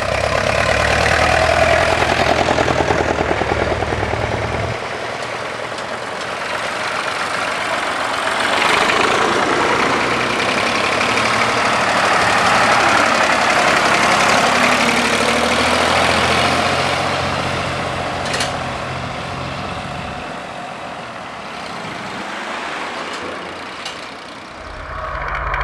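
Vintage tractor engines running as the tractors drive past one after another. The engine noise swells as each tractor comes close and fades as it moves off: loud at first, dropping about five seconds in, rising again in the middle and dying away near the end.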